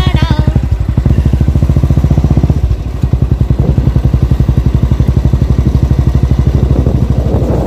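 Motorcycle engine running under way, with a fast, even pulsing exhaust beat. It eases off briefly about two and a half seconds in, then picks up again.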